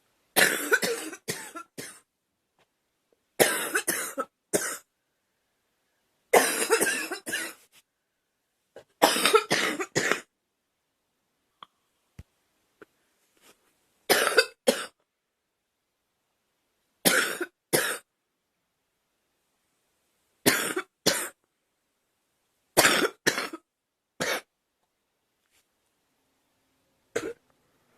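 A young woman coughing in about nine separate fits, each a quick run of two to four coughs, with pauses of a few seconds between them.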